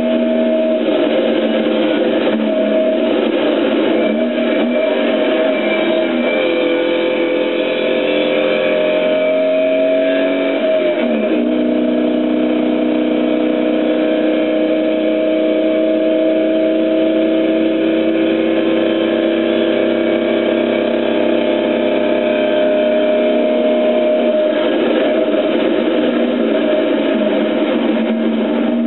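Car engine heard from inside the cabin, pulling steadily uphill. Its pitch dips and recovers about 6 and 11 seconds in, then holds nearly level for long stretches.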